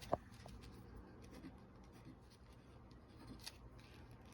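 Faint scratching of a Rite in the Rain Portage pen writing on paper, with a brief click just as it begins.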